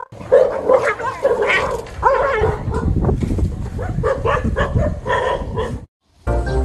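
Small dog barking and yipping rapidly, several barks a second, in alarm at a stuffed toy tiger dragged toward it. The barking breaks off suddenly about six seconds in.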